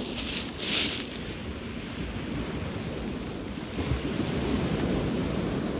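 A few short rustles as plastic bait bags are handled in the first second, then a steady low rumble of wind and waves on a shingle beach.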